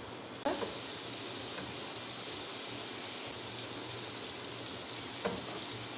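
Tomato paste frying in oil on a hot tawa, a steady sizzle that comes up suddenly about half a second in, while it is stirred with a wooden spatula.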